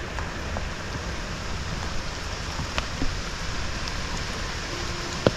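Steady hiss of rain falling, with a few sharp clicks scattered through it; the loudest click comes near the end.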